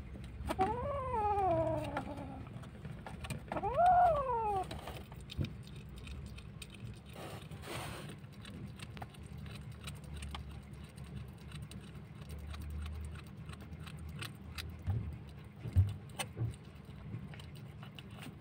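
Kitten giving two angry growling cries while guarding a piece of chicken in its mouth: the first long and falling, the second shorter, rising then falling. Faint clicks follow as it chews.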